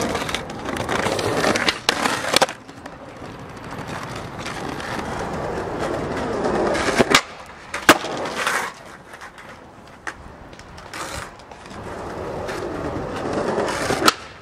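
Skateboard wheels rolling on pavement, the noise swelling and fading as the board passes. Sharp wooden clacks of the tail popping and the board landing come about two seconds in, twice around seven to eight seconds, and again near the end.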